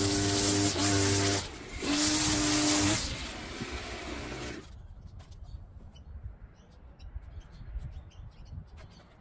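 Garden power tool running at full speed with a steady pitched whine, dropping off briefly about a second and a half in, then winding down and stopping about five seconds in. Faint bird chirps and small clicks follow.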